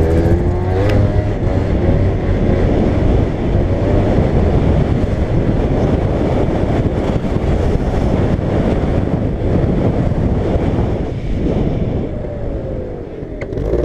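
Aprilia SR125 scooter's single-cylinder engine revving up, then running at speed under heavy wind buffeting on the microphone. Near the end the engine note falls and quietens as it slows.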